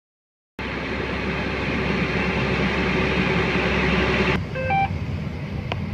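Harvest machinery engine running steadily, a loud rushing noise over a low drone. About four seconds in it gives way abruptly to a quieter drone with a few short electronic beeps.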